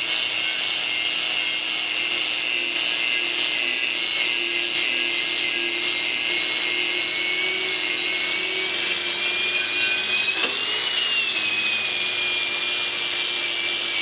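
1/8-inch E6010 stick-welding electrode burning a bead on 3/8-inch steel plate. The arc crackles and hisses steadily, with a thin whine that drifts up and down in pitch as the arc length changes.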